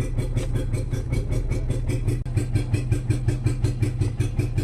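Renault Kwid's three-cylinder petrol engine running rough and misfiring with an even pulsing beat, about seven a second, while the accelerator is held fully down and the engine will not pick up revs. Its exhaust silencer is open, which makes it louder.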